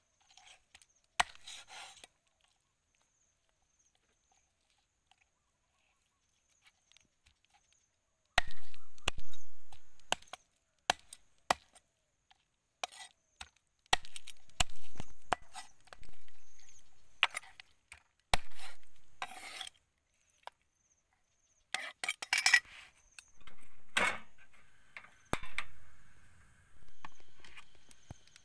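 Meat cleaver chopping raw chicken into pieces on a wooden chopping block: sharp, irregular knocks of the blade striking the wood. One chop comes about a second in, then none for several seconds, then runs of chops follow one another for most of the rest.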